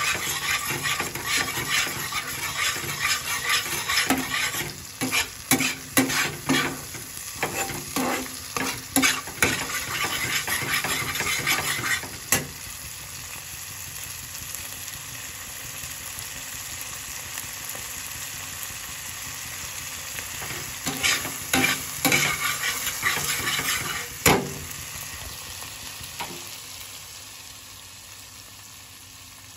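A spatula stirs and scrapes thick paneer gravy in a frying pan while the gravy sizzles. The stirring stops about twelve seconds in, leaving a steady sizzle. It comes back briefly with one loud knock, and then the sizzle fades away.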